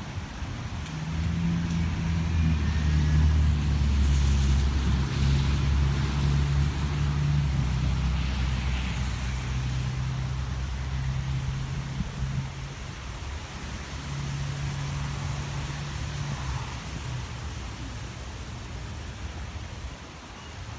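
A motor vehicle's engine running close by with a steady low hum. It grows loud within the first few seconds, then slowly fades away over the next ten or so.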